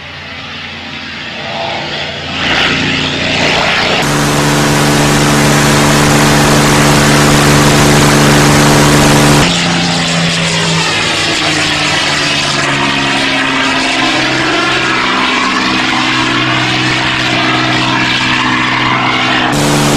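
A P-51 Mustang's Merlin V-12 engine and propeller heard from the ground as the fighter passes over. The engine grows louder as the plane approaches, then runs steadily. After a cut about nine seconds in, its pitch slides and wavers as the plane flies by.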